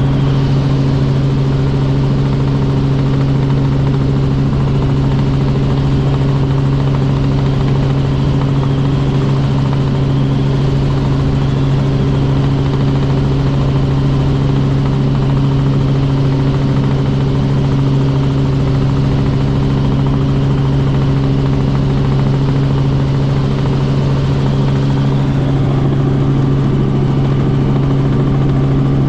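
Robinson R44 Raven II helicopter in steady flight: a loud, even drone of its Lycoming six-cylinder piston engine and rotors, with a low pitched hum that holds unchanged.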